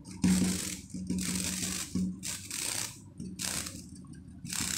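A sliding window and its mesh insect screen being handled: a series of about five scraping, rustling strokes, each under a second, with short pauses between.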